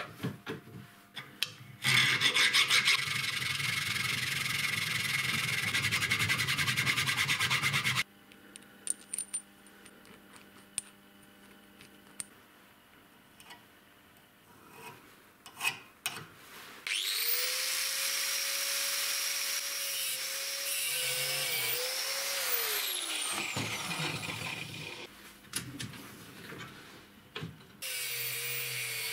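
Steel being worked in a bench vise. About two seconds in there is a stretch of steady rasping on the metal, lasting some six seconds. Later an angle grinder spins up with a rising whine, runs for about five seconds and winds down. Near the end it starts again and bites into the steel block, cutting a slot.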